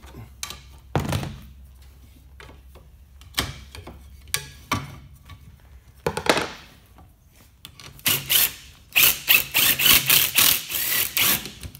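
A few separate clunks of tools and the steel blade being handled, then a Ryobi cordless impact gun hammering in repeated bursts for the last few seconds on a seized mower blade bolt that is working loose.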